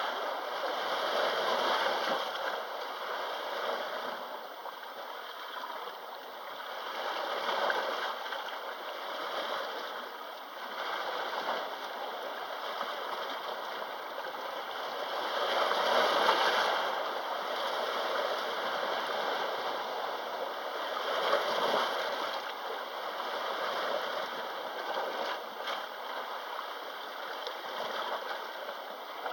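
Sea waves washing onto the shore, a continuous rush that swells and eases again every few seconds.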